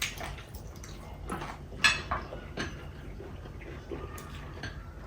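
Sounds of eating a chicken biryani meal: scattered short clicks and smacks of chewing and of a plate and food being handled, the sharpest just under two seconds in.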